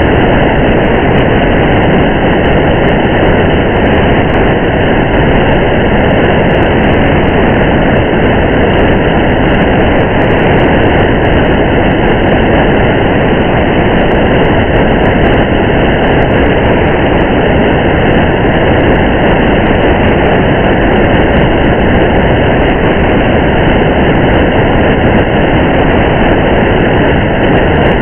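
Steady rain and road noise of a car driving on a highway: an even, unchanging noise with a low rumble underneath.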